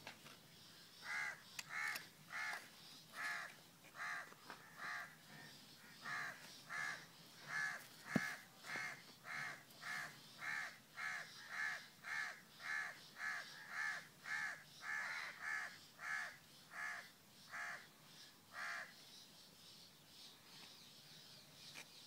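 A bird calling over and over in a steady series, just under two calls a second. The calls begin about a second in and stop a few seconds before the end. There is a single sharp knock about eight seconds in.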